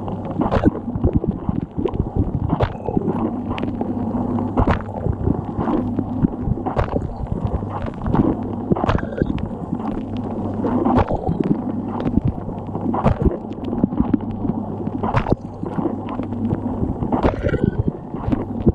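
Dishwasher mid-wash, heard from inside the tub: the circulation pump's steady hum under constant sloshing, gurgling water spray, with a sharp splash about every two seconds as the rotating spray arm's jet sweeps past.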